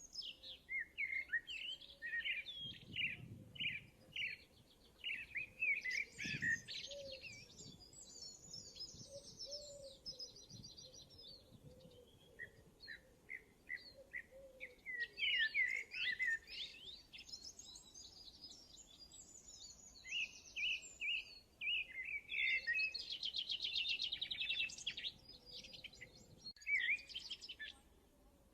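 Birds chirping and singing, with many overlapping calls and fast trills and a brief lull about twelve seconds in.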